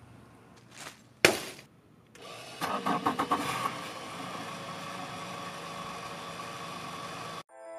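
A sharp thump, then after a brief gap a boat engine cranks in a quick run of pulses, catches and runs steadily before cutting off suddenly near the end.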